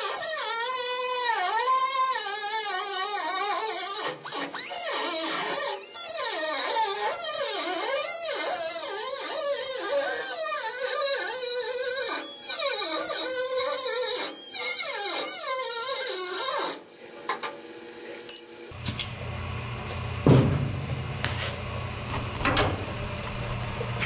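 A hand-held pneumatic die grinder cutting through the sheet metal of a pickup's rear cab corner, its high whine dipping and recovering as it bites, until it stops about 17 seconds in. After that a steady low hum with a few knocks.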